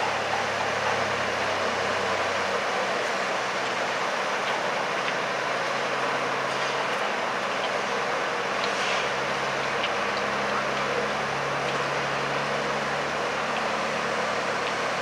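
Steady outdoor urban background noise: an even hiss with a low engine hum that changes pitch a couple of times, and a few faint clicks.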